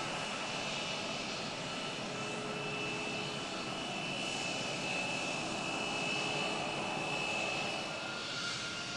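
Embraer KC-390's two IAE V2500 turbofan engines running steadily: a broad jet rush with a high whine through it, strongest in the middle few seconds.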